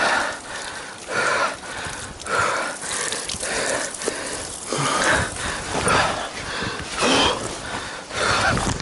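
A person breathing heavily, with loud breaths in and out about once a second.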